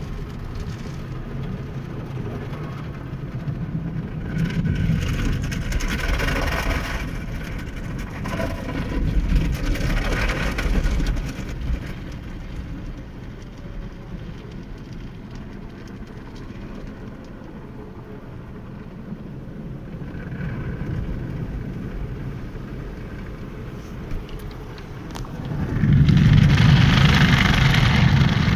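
Automatic car-wash brushes and water spray heard from inside the car: a steady rushing and scrubbing on the body and windshield that swells twice in the first half and grows loud near the end.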